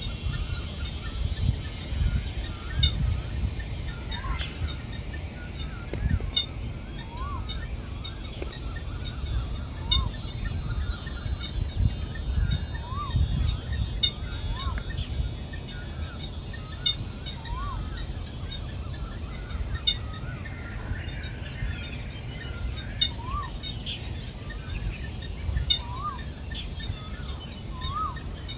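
Forest ambience: a bird repeating a short rising-and-falling call every couple of seconds, over insects trilling in short pulsed bursts and a steady high insect drone, with a low rumbling noise underneath.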